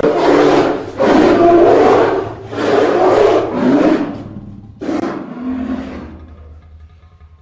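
Designed creature roars for a prehistoric ape monster: a run of loud, rough roars about a second long each, weakening over the second half and trailing off, with a low hum left near the end.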